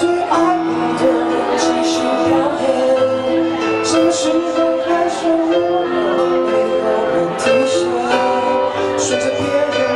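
Live band song played through PA speakers: a singer holding long notes over keyboard and guitar accompaniment.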